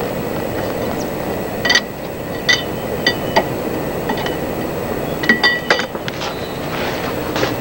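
Steel hand tools clinking against metal in a car's engine bay: about a dozen short, lightly ringing clinks, scattered, with a quick run of several about two-thirds of the way in, over steady background noise.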